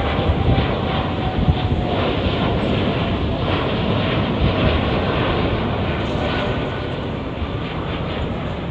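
Jet engines of a Boeing 787 Dreamliner climbing out after takeoff: a steady, loud rumbling noise that eases slightly near the end, with a faint whine sliding down in pitch during the first few seconds.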